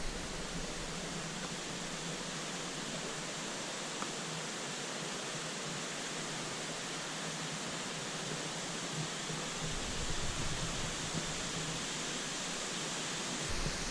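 Steady rush of running creek water, an even hiss with no break, with a brief low rumble about ten seconds in.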